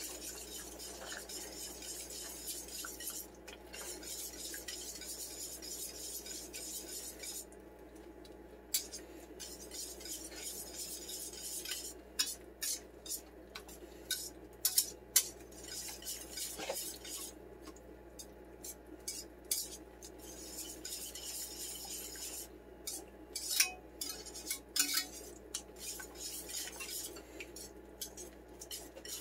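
Flat wire whisk stirring cream of chicken soup into a creamy sauce in a stainless steel skillet: a steady scraping swish at first, then irregular clinks and taps of the wire against the pan from about twelve seconds in.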